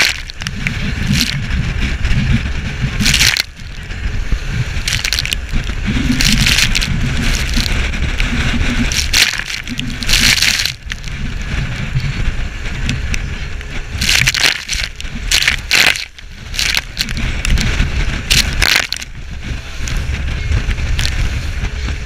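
Small fishing boat running fast through choppy seas: steady wind buffeting the microphone over the rumble of the boat's motor, broken again and again by sharp splashes of spray and the hull slapping into waves.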